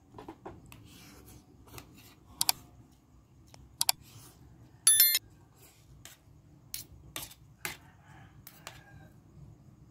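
Metal spoon and fork clinking and scraping against a plate during eating: a string of sharp clinks, the loudest about five seconds in with a brief ring.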